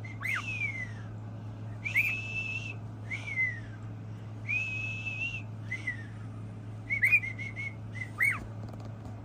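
A pet parrot whistling a song: swooping whistles, two long held notes, and a quick run of short whistled notes near the end.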